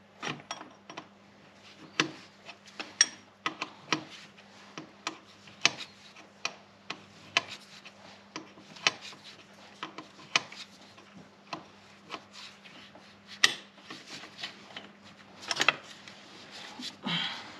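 Hand tools clicking and knocking irregularly, roughly one or two sharp clicks a second, while fittings on a diesel fuel filter housing are worked loose. There is a brief scraping, rubbing sound near the end.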